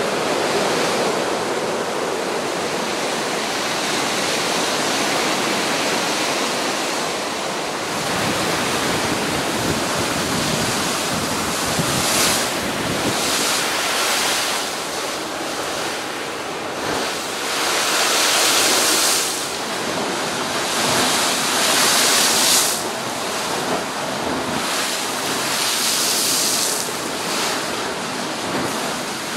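Storm surf breaking against a seawall and washing across a flooded promenade: continuous rushing water that swells several times into louder, hissing surges as waves crash. Strong wind blows across the microphone.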